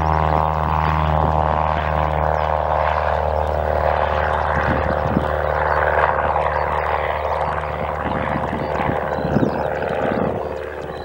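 Cessna 172S Skyhawk SP's four-cylinder piston engine and propeller running steadily at takeoff power, the sound dropping off near the end.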